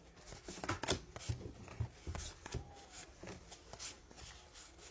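Trading cards being flipped and slid against one another by hand: faint, irregular clicks and rustles.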